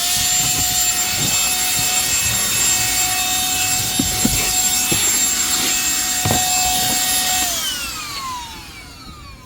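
Cordless handheld vacuum running at full speed with a steady high whine and a few light knocks. About seven and a half seconds in it is switched off, and the whine falls in pitch as the motor spins down.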